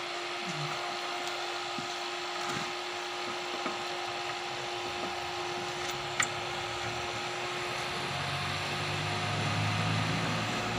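A powered-up 1000-watt power amplifier giving a steady hiss and hum, with a low hum growing stronger about eight seconds in. The extra noise is put down to the iron core of its power transformer.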